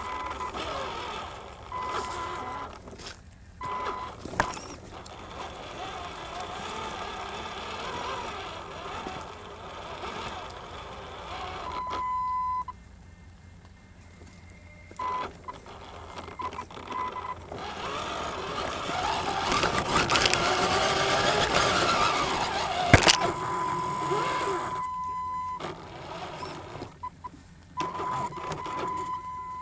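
RC truck's electric drive heard from on board, its motor and gears whirring with a steady high whine that cuts in and out as the throttle is worked, briefly stopping partway through. Near the end it runs louder and rougher over the ground, with one sharp knock.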